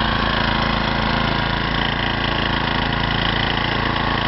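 Snowblower's small engine running steadily at a constant speed.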